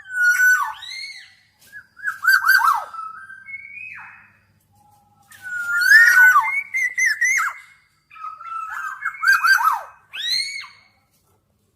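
Black-naped oriole singing: four fluid whistled phrases of slurred notes that swoop up and down, separated by short pauses.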